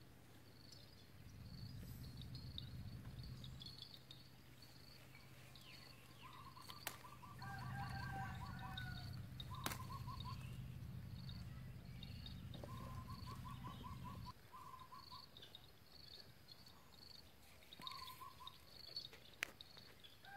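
Birds calling: short rapid trilled calls come several times over faint high chirps. Under them a low rumble comes and goes, then stops abruptly about two-thirds of the way through.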